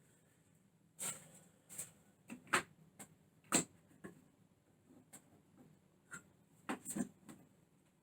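About a dozen sharp, irregular clicks and knocks of hard parts being handled and set in place, as a door lock installation jig is fitted to the door. No drill or motor runs.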